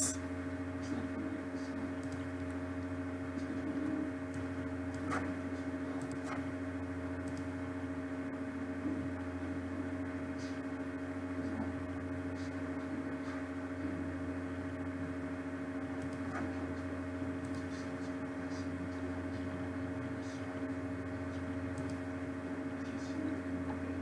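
Steady electrical hum with several even tones, the background noise of a computer recording setup, with a few faint mouse clicks scattered through it.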